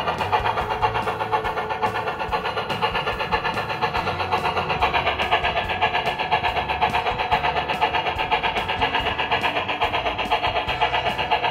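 HO scale model train running on a layout, with a fast, even clicking of about five a second.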